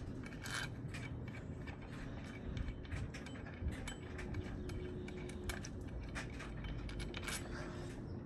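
Irregular small metallic clicks and clinks of hand tools working the Allen bolts on a supercharger pulley hub, over a low steady hum.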